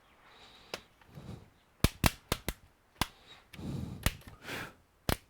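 Sharp clicks and knocks from handling laptop parts during disassembly, with plastic and small metal parts tapping together. There is a quick cluster of clicks about two seconds in, and a stretch of rustling handling noise a little after the middle.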